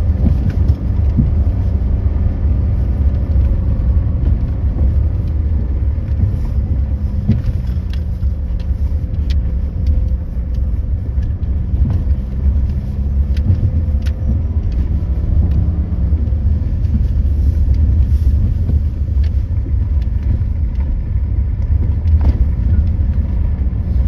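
Car driving at a steady pace, heard from inside: a dense low rumble of road and engine noise with a faint engine hum that drifts slightly in pitch.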